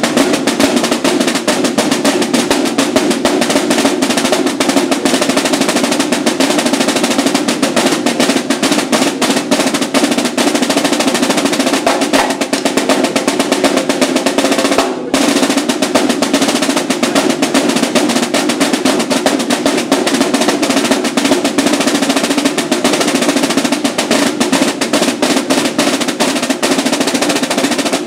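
Two Yamaha marching snare drums played together in a fast, continuous duet of rolls and dense stick patterns, with a brief break about halfway through. The playing cuts off right at the end.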